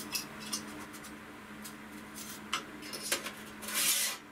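Light metal clinks and taps as alcohol-stove parts are handled and fitted together, with a scraping rub near the end as one is set down on the metal stove stand.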